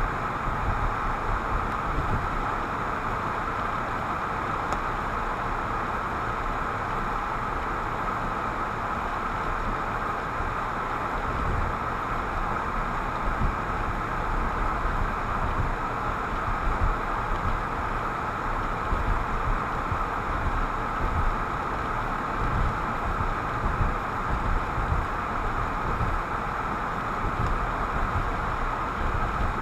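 Steady road and engine noise of a moving car, heard inside the cabin through a windshield-mounted dashboard camera, with irregular low bumps from the road.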